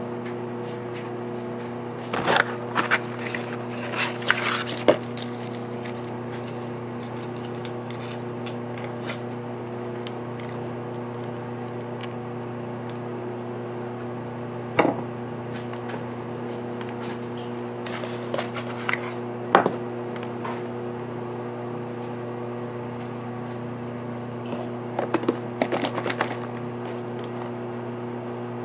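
A steady electrical hum from a kitchen appliance, with scattered knocks, taps and rustles of items handled on a stone countertop, including a cardboard cream cheese box being opened and emptied. The handling noises come in clusters a couple of seconds in, around the middle, and near the end.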